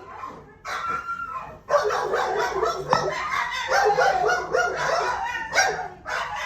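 Dogs barking and yelping in a kennel, their barks overlapping one another, starting about a second in.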